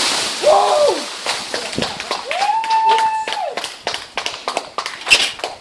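A felled dead tree coming down: a run of sharp snaps and cracks of breaking wood, with two shouts from the people pulling it, one long and held.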